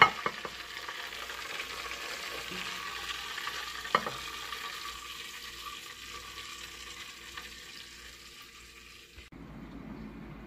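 Hot cooking fat sizzling and crackling, with a sharp clack of metal tongs setting a piece of chicken on the plate at the start and another knock about four seconds in. The sizzle cuts off about nine seconds in and a low hum follows.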